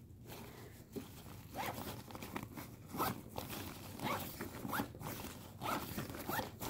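Zipper on an airblown inflatable's fabric being worked in a series of short, quick zipping strokes, starting about a second and a half in, to make sure it is closed all the way.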